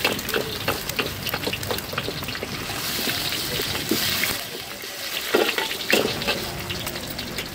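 An egg sizzling in hot oil in a wok, with a metal spatula scraping and tapping against the wok. Two louder clanks come a little after five and six seconds in.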